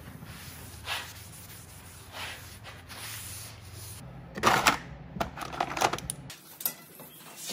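A rag wiping down steel square tubing in a few soft strokes. Then small items clatter and knock about as a hand rummages in a plastic storage drawer. This clatter is the loudest part.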